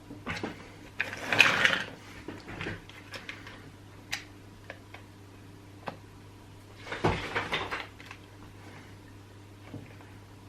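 Chainsaw parts and tools being handled and fitted by hand: scattered clicks and knocks, with two short bursts of rattling and scraping, about a second in and again about seven seconds in.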